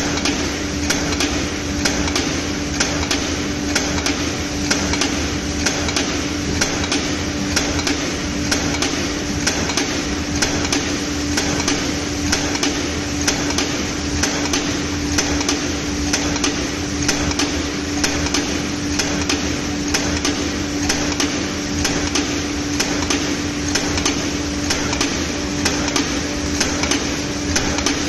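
Semi-automatic aluminium foil cup making press running: a regular series of quick stamping strokes over a steady hum, each stroke punching out a row of foil cups.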